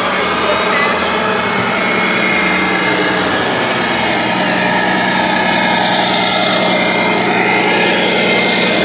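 Steady engine-like running sound with a few thin, constant whining tones, from remote-control model semi trucks driving past, the kind of simulated diesel engine sound that a scale truck's sound module plays.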